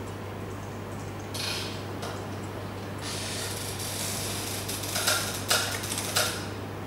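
Handling noise: a short rustle, then a longer rustle with three sharp clicks near the end, over a steady low electrical hum.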